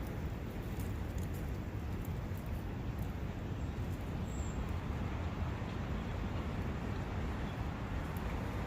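A brook running steadily: an even rush of water, heaviest in the low end, with a few faint high ticks.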